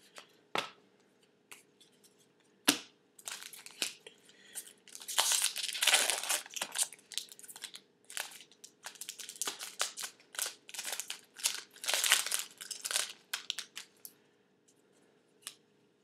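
The foil wrapper of a 2012 Upper Deck SP Authentic football card pack being torn open and crinkled in the hands: a dense run of crackling from about three seconds in to about fourteen. Before it come a couple of sharp clicks.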